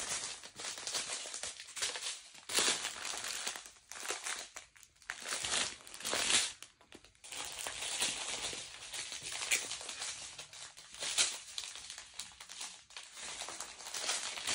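Plastic crinkling in irregular bursts as it is handled, a small zip bag of diamond-painting drills or the clear film over the canvas.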